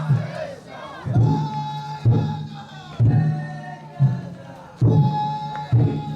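The big drum of a Japanese taiko-dai festival float being struck in a slow, steady beat, about one heavy stroke a second. A crowd of men chants along with it in long, held calls.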